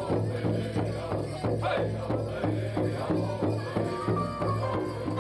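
Powwow drum music: a drum beaten in a steady beat of about three strokes a second, with singing.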